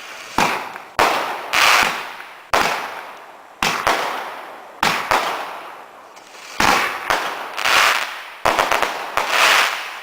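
Gamma Project firework cake firing a rapid series of shots: about a dozen sharp bangs at uneven half-second to second-and-a-half gaps, each trailing off in a crackling hiss.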